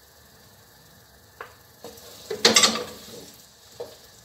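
Wooden spatulas stirring thick, sticky biko rice in a metal wok: a sharp knock about a second and a half in, a loud scrape a second later, and another short knock near the end.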